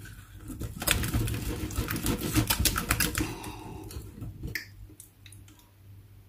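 Rapid clicking and rattling of a kitchen utensil stirring hard against a bowl, dying away about four and a half seconds in.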